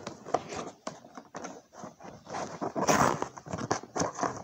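A package being pulled and worked at by hand to get it open: a run of crinkling, tapping handling noises, with a louder rush of noise about three seconds in.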